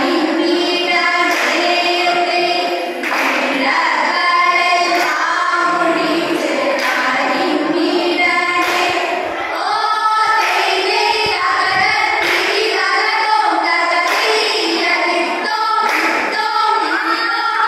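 A group of young women singing a vanjippattu, the Kerala boat song, together in chorus through stage microphones.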